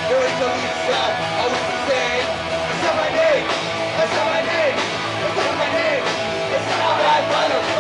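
Live rock band playing: electric guitars through Marshall amplifiers and a drum kit, with a singer at the microphone.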